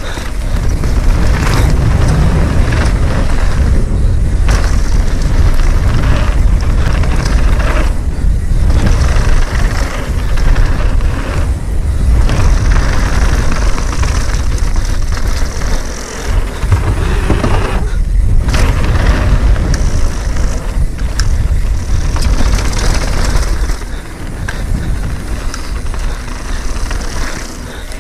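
Mountain bike descending a rough technical trail: tyres rumbling over dirt and rock, with rattles and knocks from the bike and wind buffeting the microphone.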